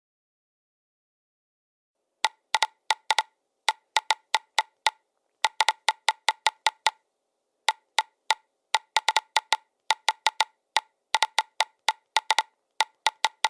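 Cell phone on-screen keyboard key-press clicks, typing at an uneven pace in short runs with brief pauses, starting about two seconds in.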